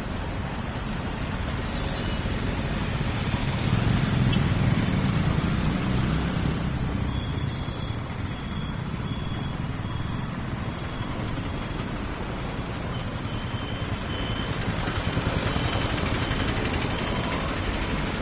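City street traffic: a steady wash of engine and tyre noise as vehicles pass, swelling about four seconds in and again near the end. A faint, broken high tone sounds through the middle.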